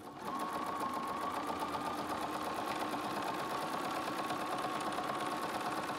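Electric sewing machine starting up and stitching at a steady speed: an even motor whine with a rapid run of needle strokes.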